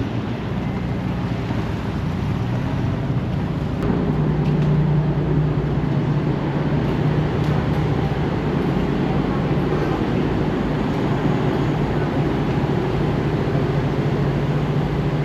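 A river ferry's engine running steadily: a low, even hum that grows a little louder about four seconds in.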